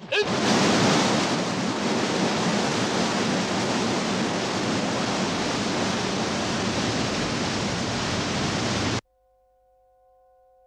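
Waterfall pouring heavily, a loud, even rush of water that cuts off abruptly about nine seconds in; at the very start, the tail end of a man's shout. After the cut, a bowl-shaped bell rings faintly with several held tones.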